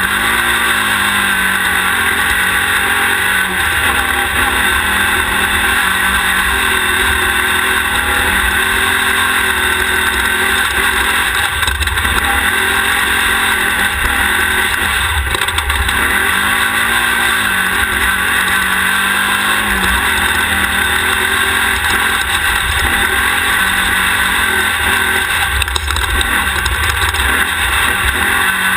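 Air-cooled 1600cc Volkswagen engine of a Class 1600 off-road race car running hard, its pitch rising and falling again and again as it revs up and backs off. A loud, steady rushing noise runs underneath throughout.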